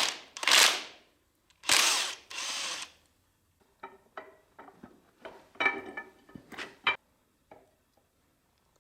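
Several short bursts of a power tool on engine bolts, followed by scattered metal clicks and ringing clanks of tools and engine parts.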